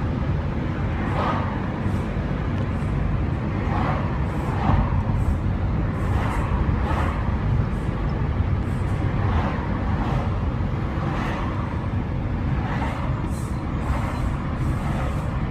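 Steady low rumble of a vehicle driving in city traffic: engine and road noise, with brief swells of noise every second or two.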